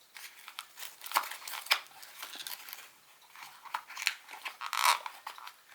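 Plastic and paper packaging rustling and crinkling as small accessory parts are handled, with irregular sharp clicks and a louder rustle near the end.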